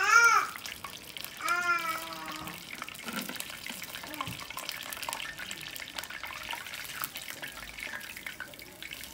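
Hot oil sizzling and crackling steadily in a kadai as chicken drumsticks deep-fry. A voice calls out twice in the first two seconds, louder than the frying.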